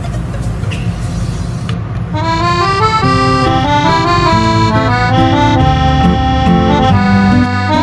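Background music: over a steady low beat, an accordion melody of held notes comes in about two seconds in and grows louder.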